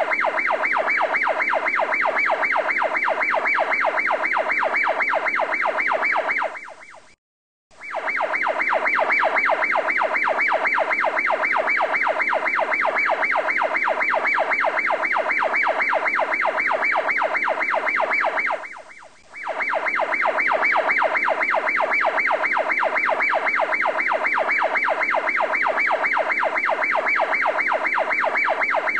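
Electronic siren-like sound effect laid over the footage: a loud, fast, evenly pulsing tone. It fades out to silence about seven seconds in, starts again, and dips briefly near 19 seconds.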